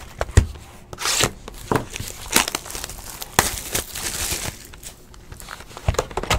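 Plastic shrink-wrap on a cardboard trading-card box being slit with a box cutter and torn and crinkled off: a string of sharp crackles and tearing rustles.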